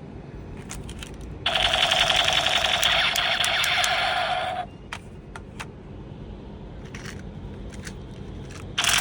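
Toy blaster firing a rapid automatic burst, a dense buzzing rattle lasting about three seconds, followed by a few separate clicks; a second burst starts near the end.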